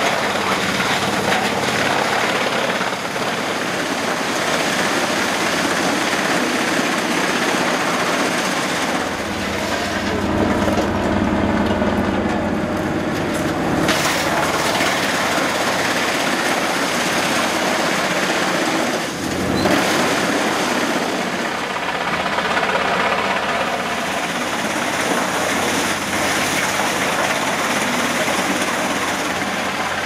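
FARMI 380 HFC tractor-PTO disc wood chipper chipping birch trunks fed in by a crane grapple on its steel conveyor infeed, with the tractor engine running under load. Continuous loud mechanical din whose low end swells and eases as the trunks go through.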